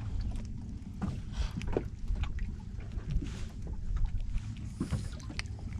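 Small boat drifting on open water: steady low wind rumble on the microphone, water slapping at the hull, and scattered small knocks in the boat.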